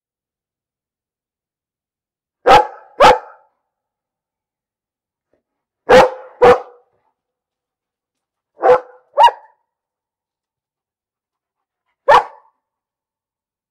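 A dog barking in pairs: three double barks a few seconds apart, then a single bark near the end.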